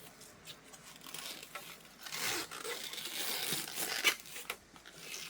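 Cabbage leaves being torn and peeled off the head by hand, a crisp crackling and snapping that is loudest from about two seconds in, with a sharp snap a little after four seconds.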